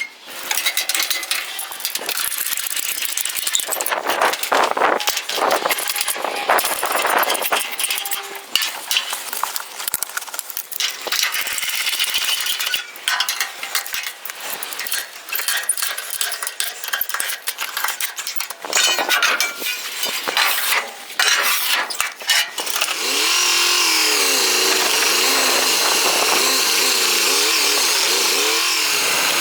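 Workshop tool noise: irregular scraping and rasping broken by sharp clinks and knocks, then a steady power tool running evenly from about three-quarters of the way through.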